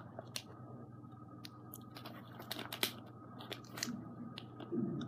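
Faint scattered clicks and crinkles from plastic candy packaging being handled, a bag of penny candy and a wrapped chocolate bar, over a steady low hum.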